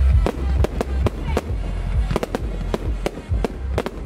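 Fireworks going off in quick succession: a dense, irregular string of sharp bangs and cracks, about four or five a second, from aerial shells, comets and crackling stars.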